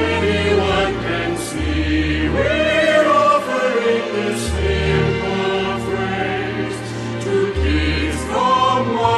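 Background music: a choir singing held, swelling notes over a steady low bass.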